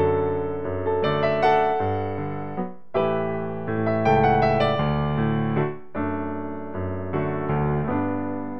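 Slow piano music: chords struck about every three seconds and left to fade.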